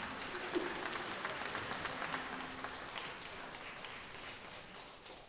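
Concert audience applauding, a dense patter of many hands clapping that fades away toward the end.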